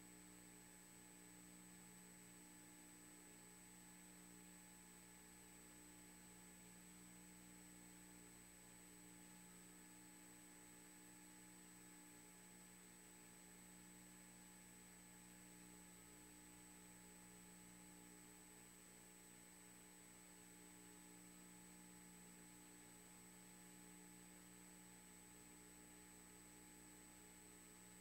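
Near silence: a faint, steady electrical hum with a thin high whine and hiss.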